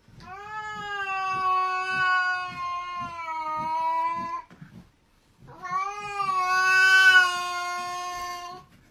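A cat yowling twice, two long drawn-out calls of about four seconds each with a short break between them. It is a warning yowl at another cat in a face-off.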